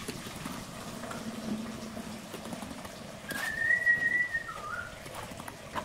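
A brief high whistle a little over three seconds in: one held note lasting about a second, then a short lower wavering note, over faint background noise.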